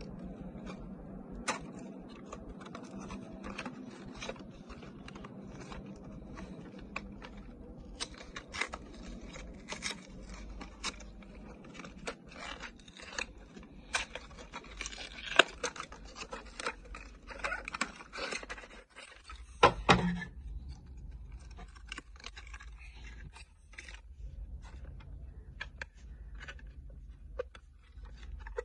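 Handling and opening a diecast toy car's packaging by hand: scattered clicks, scrapes and crinkles, busiest and loudest about two-thirds of the way through.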